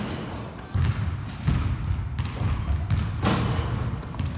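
Basketballs thudding and bouncing on a hardwood gym floor, several separate knocks spaced about a second apart.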